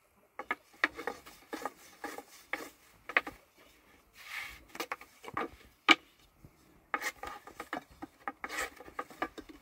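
Long thin wooden rolling pin rolling out flatbread dough on a round wooden board: irregular wooden knocks and clacks, about two a second, as the pin is rolled and set down, with a stretch of rubbing as it rolls across the dough. One sharper knock about six seconds in.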